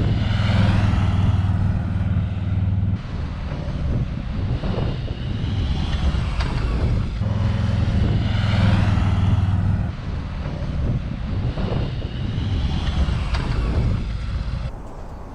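Harley-Davidson V-twin motorcycle engine running with a deep, steady rumble, in edited clips that cut abruptly about three and ten seconds in.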